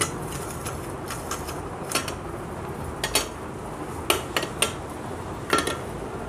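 Metal socket wrench clinking and knocking against bolts and the aluminium engine case as two 10 mm bolts are fitted and tightened on a Honda CD100 engine. The clinks are sharp and irregular, about one a second.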